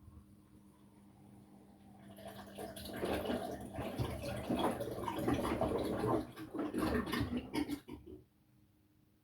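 Front-loading washing machine in its wash cycle. The drum turns and churns water and laundry for about six seconds over a steady motor hum, then the tumbling stops abruptly and only the hum is left.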